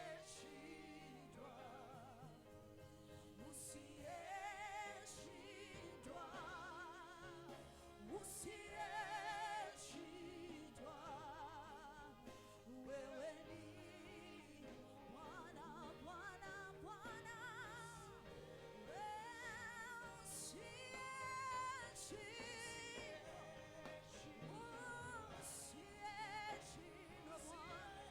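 Church worship music: a voice singing a slow melody with strong vibrato over sustained instrumental backing.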